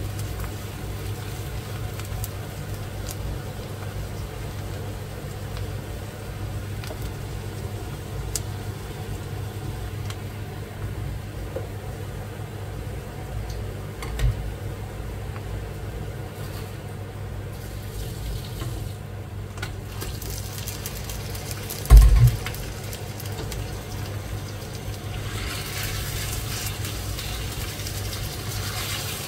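Chopped onion frying in oil in a wok over a steady low hum. There is one heavy thump about 22 seconds in and a lighter one earlier, and a brighter hiss comes in near the end.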